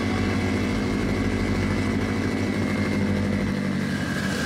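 Freshly rebuilt Mitsubishi Lancer Evolution VIII's turbocharged 4G63 four-cylinder running steadily, heard from inside the cabin. The low end of the sound drops away abruptly about three and a half seconds in.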